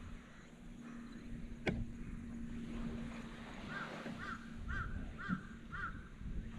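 A bird calling five times in an even series, about two calls a second, starting a little under four seconds in. A single sharp tap comes about two seconds in, before the calls.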